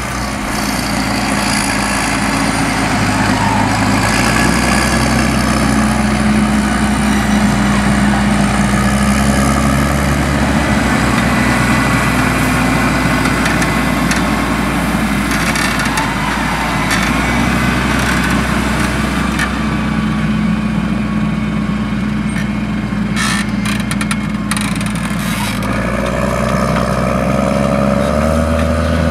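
New Holland T7070 tractor's 6.7-litre NEF six-cylinder turbo-diesel, overboosted and running through an open, unsilenced exhaust pipe. It runs steadily, its pitch shifting in steps a few times.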